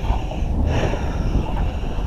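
Wind buffeting a body-worn camera's microphone: a steady low rumble with hissy gusts swelling and fading.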